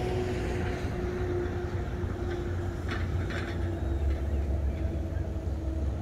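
A steady low rumble with a distant engine hum. About three seconds in there are two brief gull calls.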